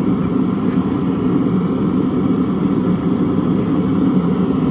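A lit forge running steadily, its even, low rush unchanged throughout.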